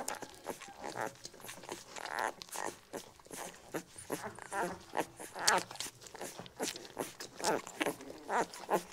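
Litter of 11-day-old puppies suckling at their mother, with frequent short, wavering squeaks and whimpers and small sucking clicks.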